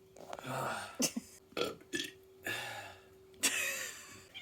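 A person belching several times in a row, about five burps of varying length, the last one the longest.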